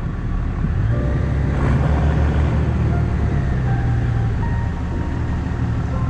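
Four-wheel-drive vehicle running with a steady low rumble, with background music faintly over it.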